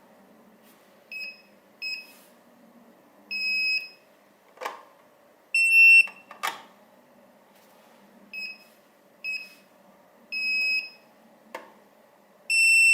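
Electronic beeps from a Retekess TD164 restaurant paging system as its keypad is pressed: about eight high-pitched beeps, some short and some held about half a second, the loudest about halfway through and at the end. Three short knocks of handling fall between them.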